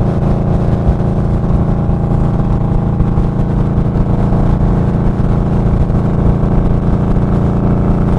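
Indian Scout Sixty's V-twin engine running at a steady cruise while riding, a constant drone that holds the same pitch throughout.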